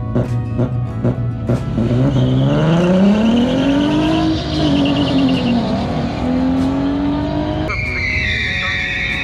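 Street cars revving and launching off a drag strip's starting line, engine pitch climbing, dropping back, then climbing again, under background music with a steady beat. Near the end the engine sound cuts off and the music carries on.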